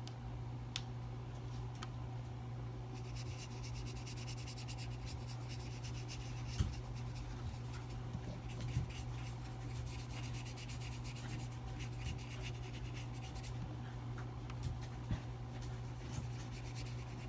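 Paintbrush rubbing across thick watercolor paper, a soft scratchy sound that comes and goes in strokes, with a few light taps, over a steady low hum.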